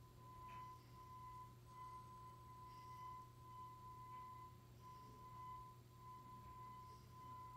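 Near silence: room tone with a faint, steady high-pitched whine that drops out briefly a few times, over a low hum.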